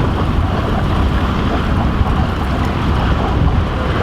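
Steady wind buffeting the microphone aboard a sailboat under way, a continuous low rumble with a hiss of wind and water above it.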